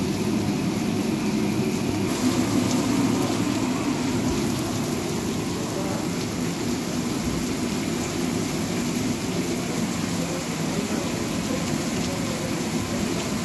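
Heavy rain falling steadily and splashing on a paved street.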